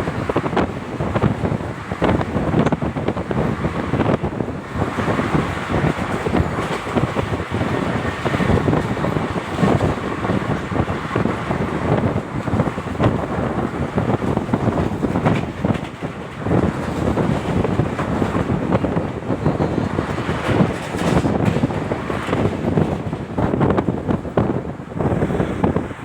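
Passenger express train running at speed, with steady rail noise and many quick clacks, and heavy wind buffeting the microphone.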